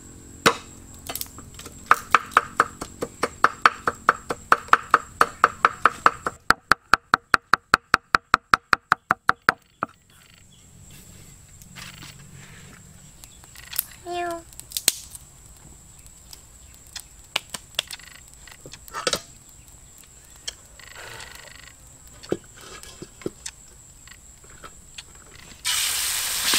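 A knife chopping rapidly and evenly on a cutting board, about five strokes a second, stopping about ten seconds in. Scattered light knocks follow, and near the end food starts sizzling loudly in hot oil.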